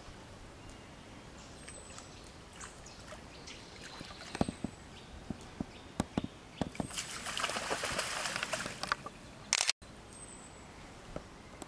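Brown bear wading in a pond, sloshing and splashing the water with its body and muzzle. A few sharp splashes and clicks come first, then a stretch of louder splashing past the middle, ending in a short loud splash that cuts off abruptly.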